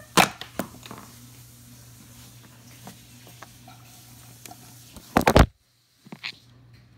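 Handling noise from a phone being moved and covered: a sharp knock just after the start, a few light taps, then a cluster of loud knocks and rubbing about five seconds in, after which the sound cuts out for half a second.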